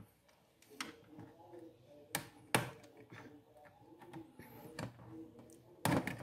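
Sharp plastic clicks and small scrapes as a wire-harness connector is pried loose from a TV power board with fingers and a small screwdriver: a few separate clicks, then a louder cluster of clicks near the end.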